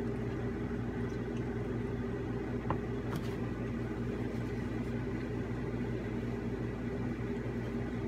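Steady hum of a running air conditioner, with a couple of faint clicks about three seconds in.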